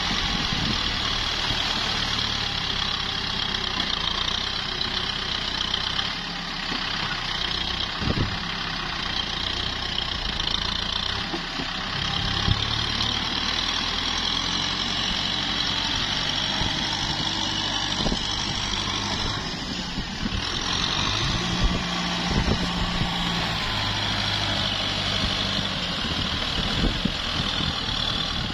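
Kubota M6040SU tractor's four-cylinder diesel engine running steadily, its pitch stepping up and down now and then as the load or throttle changes, with a few short knocks along the way.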